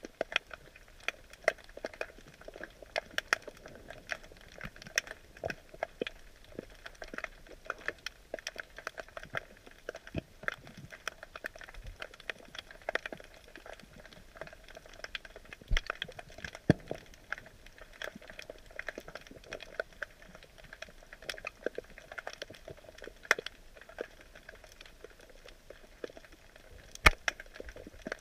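Underwater crackling: a steady, irregular patter of sharp clicks picked up by a submerged camera, with a few louder snaps, the loudest near the end.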